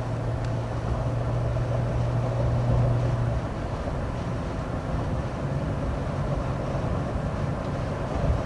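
Jeep driving, heard from inside the cabin: steady engine and road noise, with a low engine hum that stands out for the first three seconds or so and then fades into the road noise.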